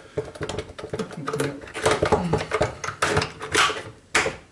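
Plastic-and-metal airsoft M4-style carbine being handled on a wooden table, with a string of quick clicks and knocks from its stock, buffer tube and receiver.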